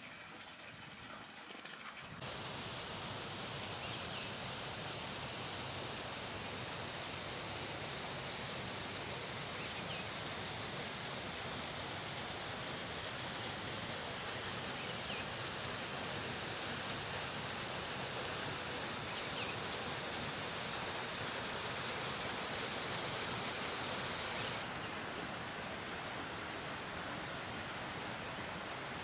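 Steady outdoor background noise with a continuous high-pitched whine running through it, starting abruptly about two seconds in, with a few faint high chirps.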